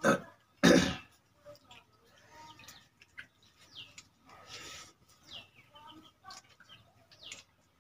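Several short bird chirps that fall in pitch, over faint small sounds of people eating rice with their hands from steel bowls. Two loud, brief noises in the first second are the loudest thing.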